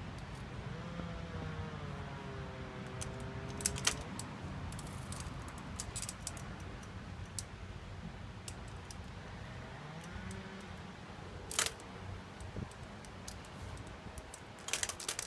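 Scattered light metallic clicks and rattles from an aluminium folding walker as it is gripped and shifted, with sharper knocks about four seconds in, near the middle and near the end, over a steady low hum.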